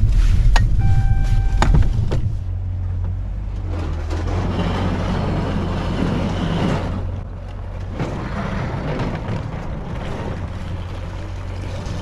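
Pickup truck engine running as a front-mounted snowplow blade pushes and scrapes across snow and ice. A brief electronic beep sounds about a second in, over a louder rumble before the plowing begins.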